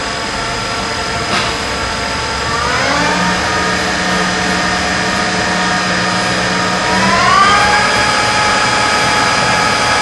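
Acer E-lathe 17 Series engine lathe running, its electronic variable-speed spindle drive giving a steady whine that glides up in pitch twice, about three seconds in and again about seven seconds in, as the spindle speed is turned up.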